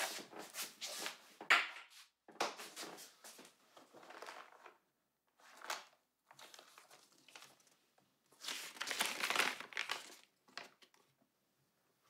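A folded sheet of lined notebook paper being handled and unfolded: paper crinkling and rustling in irregular bursts with short pauses between them.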